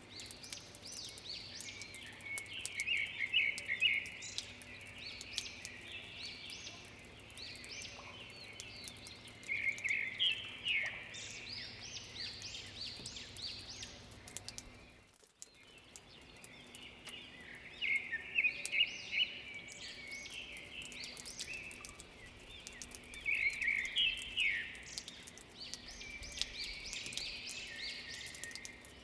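Several songbirds singing in short, repeated chirping phrases over a faint steady background, with a brief drop-out about halfway through.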